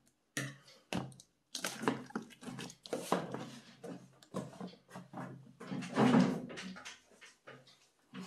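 Large cardboard box being handled, turned over and set down on a table: irregular rubs, scrapes and light knocks, loudest about six seconds in.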